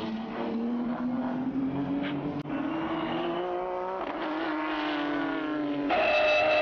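Nissan Skyline R34 GT-R race car engine under load through a corner, its pitch climbing for about four seconds, then dropping and easing off slightly. About six seconds in it switches to a louder, steady in-car engine note.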